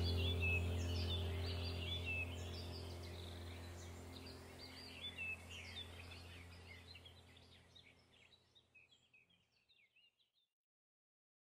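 Ambient background track of chirping birdsong over a low steady drone, fading out to silence about eight seconds in.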